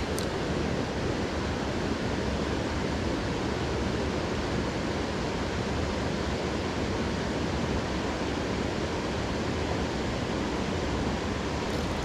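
Steady rushing of a mountain trout stream running high and swollen after days of rain.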